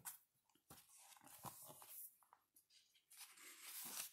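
Faint rustling and light taps of a hardcover picture book being handled and opened, its cover and pages brushing, in two short spells.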